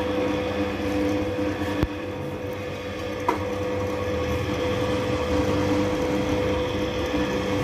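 Drill press motor running steadily as its bit drills through a leaf-spring leaf, hard spring steel that is difficult to drill, with a couple of sharp clicks about two and three seconds in.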